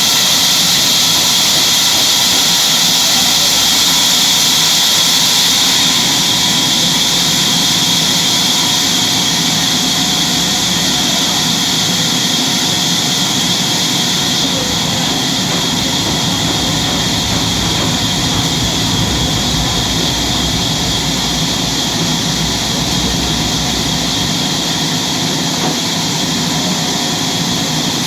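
Sawmill saw running steadily: a loud, even mechanical noise with a strong high-pitched hiss and whine, slightly quieter from about six seconds in.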